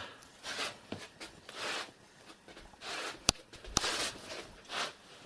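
Light scuffling and rustling on a bare floor, with a few sharp clicks, as two small kittens scamper about and the person filming moves with them.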